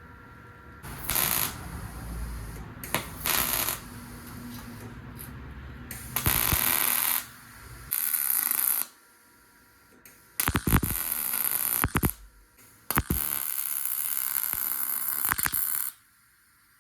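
Electric welder arc crackling and hissing in about six separate bursts, short tacks and longer stitch welds of a second to three seconds, as a sheet-metal cowl panel is welded in along the upper firewall.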